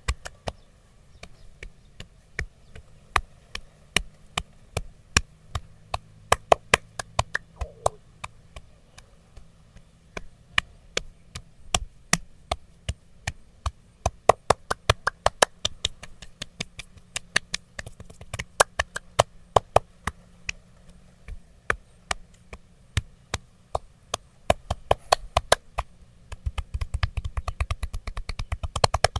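Percussive massage: sharp taps and slaps struck on a person's body, irregular and at times in quick runs of several strikes a second.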